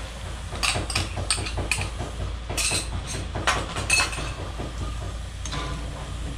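A run of sharp clinks and taps of a utensil and container against a cooking pot as a creamy sauce is poured in and stirred, over a steady low hum.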